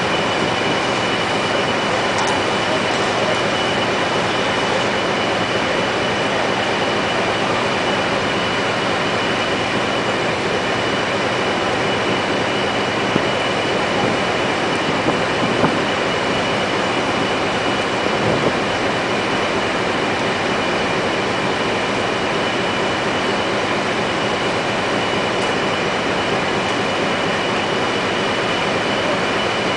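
Heavy machinery running steadily with a constant high-pitched whine, and a few brief knocks about halfway through.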